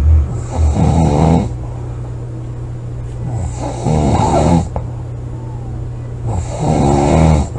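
A sleeping person snoring loudly: three snores, each about a second long, roughly three seconds apart, over a steady low hum.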